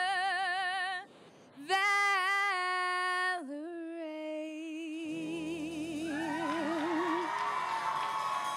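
A female lead vocalist sings long held notes with wide vibrato over a live rock band. After a short break about a second in, she slides down to a lower note and holds it. From about five seconds in, fuller band chords rise under and after the voice.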